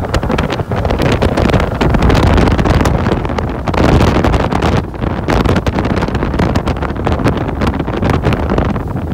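A bass boat running fast across choppy lake water, heard mostly as loud, gusty wind noise on the microphone over the rush of the hull and motor.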